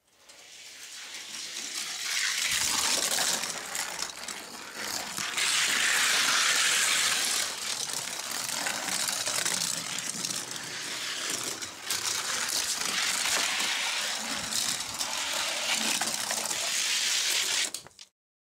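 1:64-scale Hot Wheels die-cast cars (a Chrysler 300C and a Ferrari GTO) rolling down a gravity race track: a hissing, rattling roll with many small clicks. It cuts off suddenly near the end.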